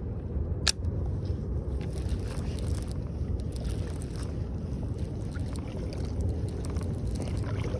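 Steady low rumble of wind buffeting the microphone on open water, with one sharp click a little under a second in.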